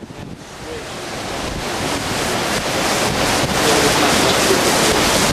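Hurricane wind and rain rushing over the camera microphone, swelling over the first couple of seconds and then holding steady and loud.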